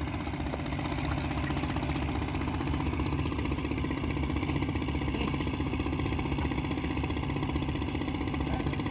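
A small engine running steadily at an even speed, with a rapid, regular chugging.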